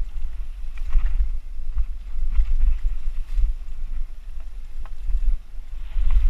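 Wind buffeting the microphone of a bike-mounted action camera as a mountain bike rolls quickly along a dirt singletrack, with tyres on loose leaf litter and a few short clicks and rattles from the bike over bumps.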